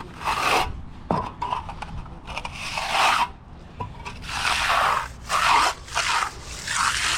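Repeated rough scraping strokes on concrete, each about half a second long and coming about once a second, like a broom or hand tool being drawn across the surface.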